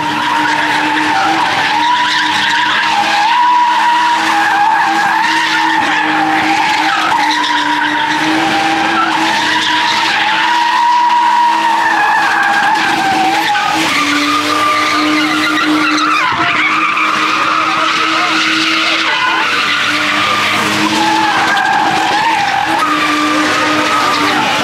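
BMW sedan doing donuts, engine held at high revs with its rear tyres spinning and screeching. The engine pitch stays mostly steady, dipping briefly about halfway through before climbing back.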